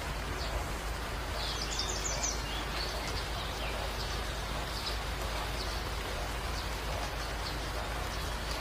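Steady rushing noise like rain, with faint bird chirps scattered through it: a rain-and-birdsong ambience.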